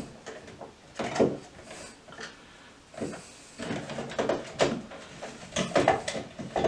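Irregular knocks and scrapes of a smart light switch and its wires being pushed and worked into a wall electrical box, in short clusters that grow busier in the second half.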